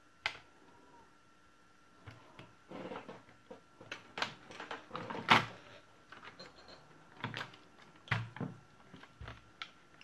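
Irregular plastic clicks and knocks as a plastic pry tool works at the clipped tabs of an HP Compaq Presario CQ61 laptop's plastic case and the case is handled. There is one click near the start, then a busy run of clicks from about two seconds in, the loudest sharp snap about five seconds in.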